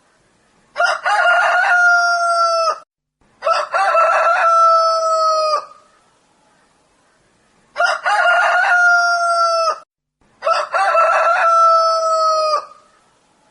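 Rooster crowing four times, in two pairs of crows about two seconds long each; every crow has a broken, stuttering start and then a long held note that drops slightly at the end.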